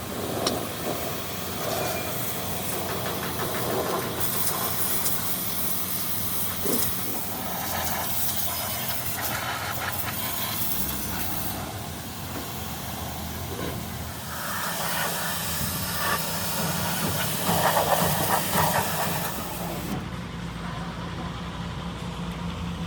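Steady hissing noise over a low hum, swelling louder for a few seconds near the end.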